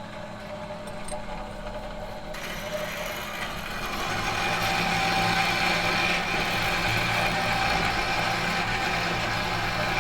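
Metal machine hum: a steady low drone made of several held tones. A higher hiss joins about two seconds in, and the hum swells over the first few seconds, then holds steady.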